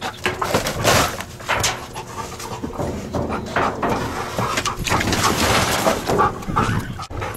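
A dog searching at close range, nosing and sniffing at a plastic trash bag, which rustles in irregular bursts of noise.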